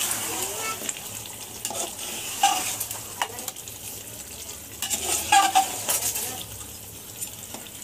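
A spoon stirring chicken masala and yogurt in a metal pot on the stove, scraping and clinking against the pot over a steady sizzle of frying. The loudest scrapes come about two and a half seconds in and in a cluster around five to six seconds in.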